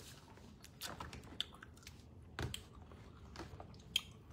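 Clear plastic snack jars being handled: a few scattered light clicks and knocks as jars are lifted and moved among others on a shelf, the heaviest knock about two and a half seconds in.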